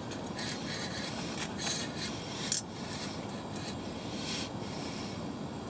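Rustling and scraping of hands and gear handled close to the microphone, with several short, soft swishes.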